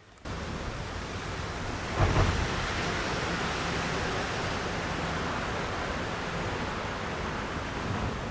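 Steady rushing noise of a full, fast-flowing river, starting abruptly, with a gust of wind buffeting the microphone about two seconds in.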